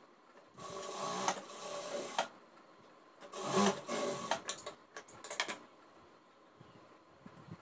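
Jack industrial sewing machine stitching blouse fabric in short runs: one run of about a second and a half, another of about a second, then several quick bursts, stopping in between.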